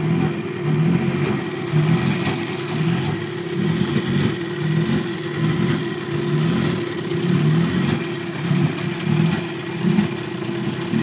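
Small tiller-steered outboard motor running steadily under way, a constant hum with a regular low throb.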